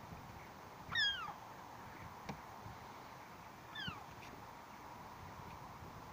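Seagull giving two short calls, each falling in pitch, about three seconds apart; the first is the louder.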